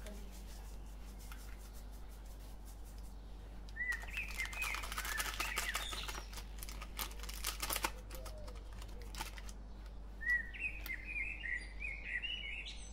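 Small birds chirping in two bursts, about four seconds in and again about ten seconds in. In between, a foil spice packet crinkles and taps in a series of sharp clicks as it is squeezed and shaken out over a bowl.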